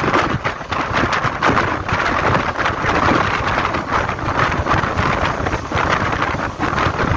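Express train running at speed, heard from on board: a steady rush of wheels on rail with rapid, irregular clatter, and wind buffeting the microphone.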